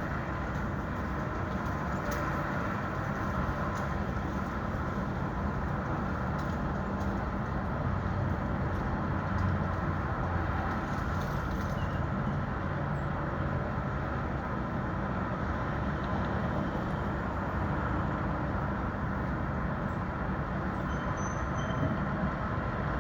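New York City street ambience: a steady, continuous rumble of traffic.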